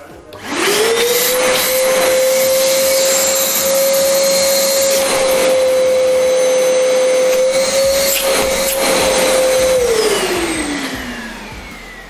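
Prestige Typhoon 05 wet-and-dry vacuum cleaner's 1200 W motor switched on, winding up within the first second to a steady high whine and running at full suction, with a few brief bumps in the middle. About ten seconds in it is switched off and the whine falls in pitch as the motor spins down.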